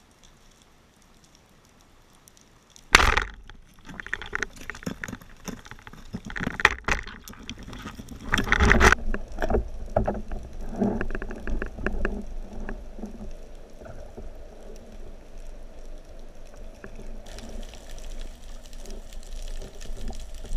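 Underwater recording: a speargun fires with one sharp crack about three seconds in, followed by several seconds of irregular knocks and rattles, then steady water noise.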